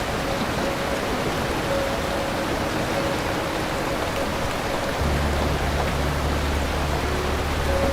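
Heavy rain falling in a steady, even hiss. About five seconds in, a low steady hum comes in underneath it.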